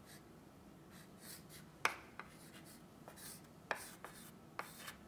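Chalk writing on a blackboard: faint scratchy strokes broken by a few sharp taps of the chalk against the board, the loudest about two seconds in.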